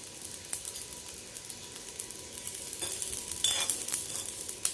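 Ajwain (carom seeds) and garlic peels dry-roasting in a hot kadhai, crackling and sizzling like cumin seeds in a tadka: the seeds are hot and starting to smoke. A brief louder scrape comes about three and a half seconds in.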